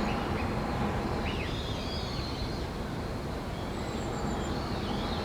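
Outdoor background noise, a steady low hum, with small birds chirping now and then and a short high, thin trill about four seconds in.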